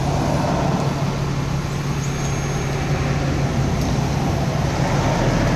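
Steady low hum with a continuous rushing noise of vehicle traffic and running engines.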